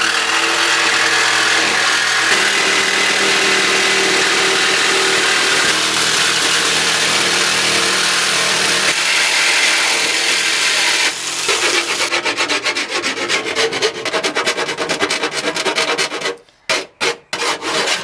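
Electric jigsaw cutting a circular hole in a washing machine's sheet-metal side panel, a steady harsh cutting sound. About eleven seconds in it gives way to a hand file rasping the cut edge in short strokes.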